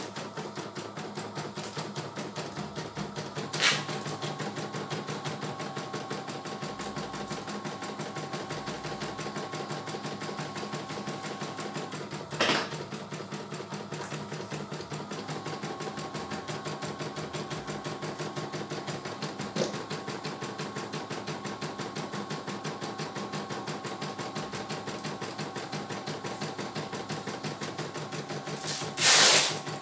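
CNY E900 computerized embroidery machine stitching out a design: the needle runs in a fast, even rhythm over a steady motor hum. A few louder clicks break in along the way, the loudest near the end.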